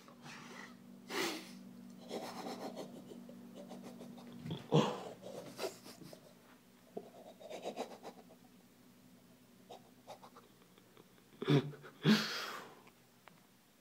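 A man breathing heavily and panting close to the microphone, with a few short, loud huffs, the strongest about twelve seconds in. A faint low steady hum lies under the first four seconds or so.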